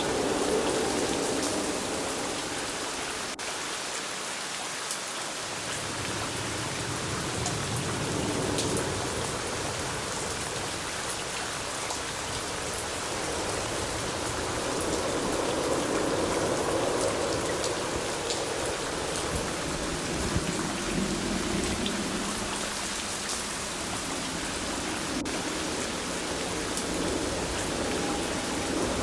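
Steady rain falling, with scattered individual drops ticking on a surface. A lower rumble swells and fades a few times, loudest about halfway through and near the end.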